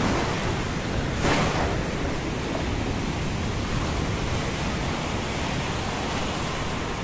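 Steady rushing storm noise of wind and surf, with a brief louder surge about a second in.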